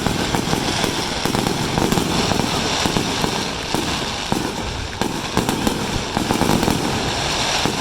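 Fireworks finale: a continuous, rapid barrage of bangs and crackles with no pauses.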